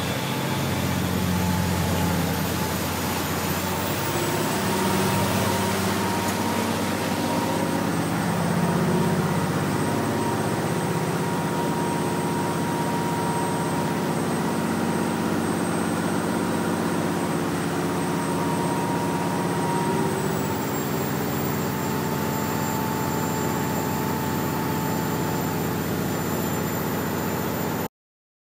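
Motor boat under way: its engines run steadily under a continuous rush of wake water along the hull. The sound cuts off abruptly near the end.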